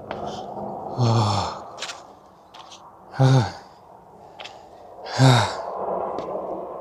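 A person sighing heavily three times, each a short breathy falling groan, while out of breath from a steep uphill climb, with a few short clicks in between.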